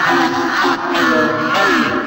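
Background music with a wordless vocal line over the beat.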